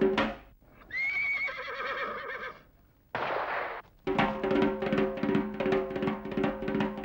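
A horse whinnying about a second in, one long wavering call of about a second and a half, after music cuts off. A short rushing noise follows, and then music with a steady beat comes back about four seconds in.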